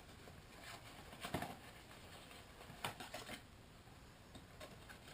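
Faint handling noises as a small cardboard kendama box is opened: scattered light taps, scrapes and rustles, a few of them about a second apart.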